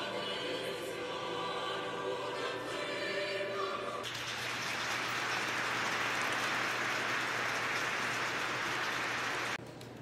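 A choir singing a sustained chord in a cathedral, the voices ending about four seconds in; the audience then breaks into steady applause, which cuts off abruptly near the end.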